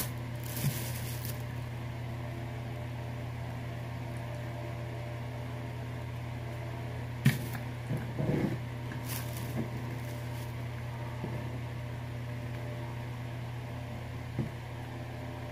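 Steady hum of an electric stand fan's motor, with a few sharp clicks and taps of cutlery on a plate, the loudest about seven seconds in.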